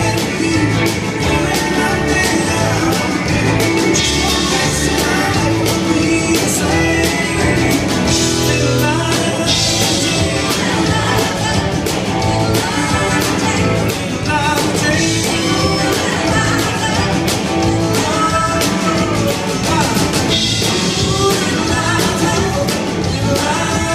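Live band performance: a man singing over an electric guitar and a drum kit, with the song running on without a break.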